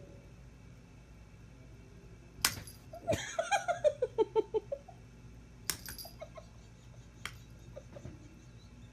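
A person laughing in a quick run of short bursts, about three seconds in, with a few sharp clicks before and after.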